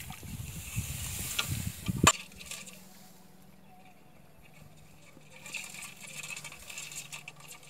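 Wind rumbling on the microphone, stopping with a sharp click about two seconds in. Then a quieter stretch with a faint steady hum, and light rustling and crackling of rice stalks near the end.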